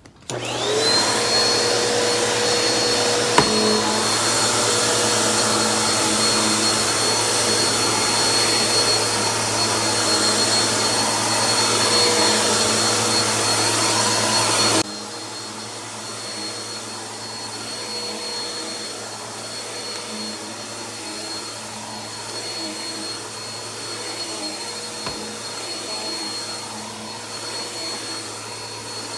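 BISSELL PowerForce Helix bagless upright vacuum's 8-amp motor switched on, spinning up with a quickly rising whine to a steady high-pitched run. About halfway through the sound drops suddenly to a quieter level and runs on steadily.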